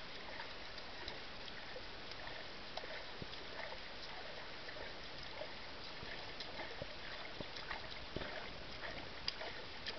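Swimming-pool water lapping gently, with scattered small splashes.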